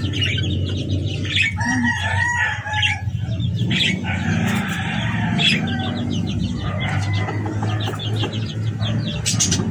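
Rooster crowing and clucking, with a long call about a second and a half in and more calling a few seconds later. Short clicks and rattles come from the metal cage door as it is opened.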